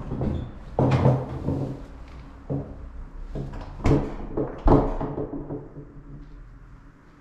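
A string of sharp knocks and clunks, like a door or cupboard being opened and shut and handled, dying away near the end.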